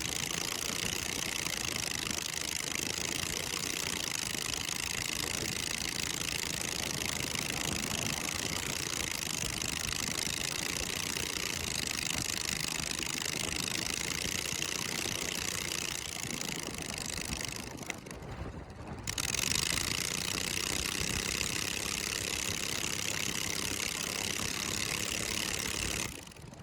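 Lawn mower engine fitted in a small pickup truck, running steadily. The sound dips briefly about two-thirds of the way through and drops away suddenly just before the end.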